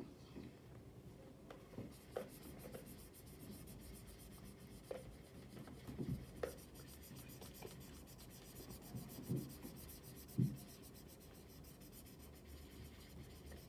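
Felt-tip marker rubbing back and forth on paper as an area of a drawing is coloured in, faint, with a few light taps.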